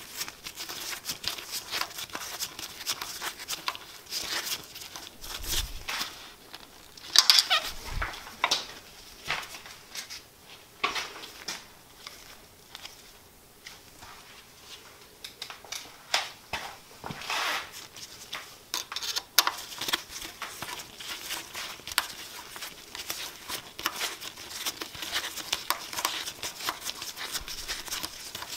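Irregular small clicks, scrapes and rustles of gloved hands working a hex key into the set screws of a lathe's headstock pulley. The loudest clatter comes about seven seconds in, with a quieter spell in the middle.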